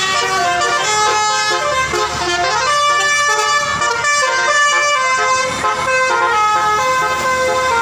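Telolet bus horn playing a tune of steady, several-toned notes that change every fraction of a second, with a sliding note about two seconds in.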